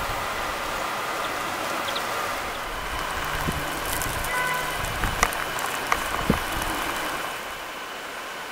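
Spring woodland ambience: a steady outdoor hiss, with a few faint bird notes about halfway through and three soft clicks in the second half.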